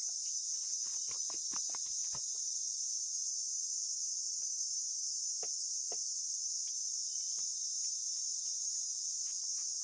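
Steady high-pitched drone of insects, crickets or cicadas, with a quick run of light knocks in the first two seconds and scattered clicks after.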